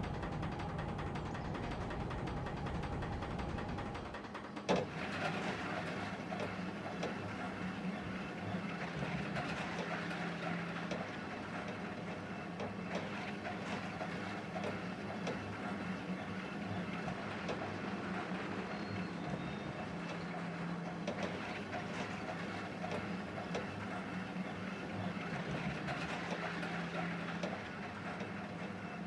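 A rail vehicle running on track: a steady rumble with a low hum and frequent small clicks. A sharp click just under five seconds in, where the sound changes.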